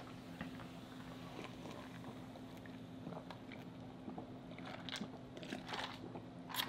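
Quiet close-up mouth sounds of a man eating: faint chewing and small lip smacks, then gulps of a drink in the last couple of seconds, ending in a sharp smack.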